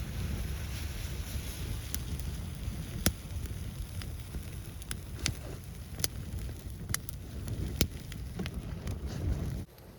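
Wind buffeting the microphone in a snowstorm, with scattered sharp crackles and clicks; the sound cuts off abruptly near the end.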